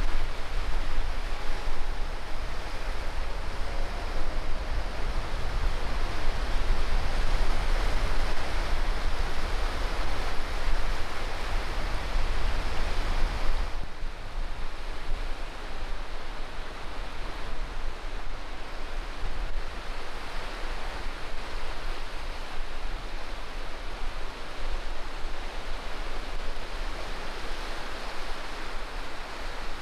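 Sea surf washing up a sandy beach, a steady rushing wash of waves with a deep low rumble. About halfway through it changes abruptly to a softer, closer wash of shallow waves lapping over the wet sand, with less of the low rumble.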